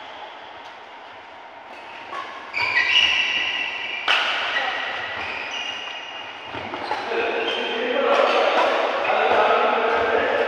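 Badminton rally on an indoor court: a few sharp racket strikes on the shuttlecock amid many short, high squeaks of court shoes.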